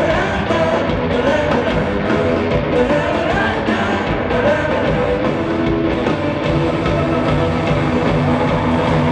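Live rock band playing loud in an arena: distorted electric guitar, drums, bass and a male lead vocal, heard through the PA from the audience.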